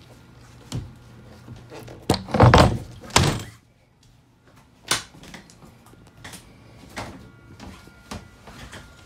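Boat engine hatch lid being lowered and shut into the cockpit deck: a cluster of heavy thunks about two to three seconds in, followed by lighter knocks and taps.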